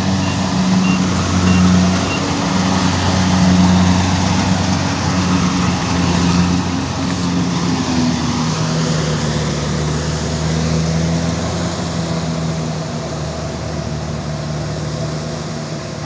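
Kubota rice combine harvester's diesel engine running steadily while it cuts and threshes rice, growing a little fainter near the end as the machine moves away.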